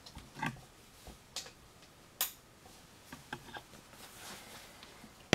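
A handful of light clicks and knocks as a lamp is handled and positioned, ending with a louder sharp click near the end.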